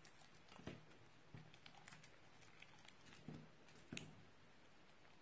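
Faint stirring of a clear glue and dish soap mixture with a silicone spatula in a glass baking dish: a few soft knocks and light clicks as the spatula meets the glass.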